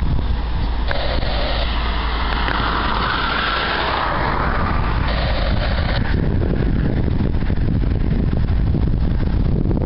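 A Norfolk Southern GE ES40DC and Dash 8-40CW diesel locomotive pair running light, their engines giving a steady deep rumble as they approach slowly. Wind noise on the microphone runs under it.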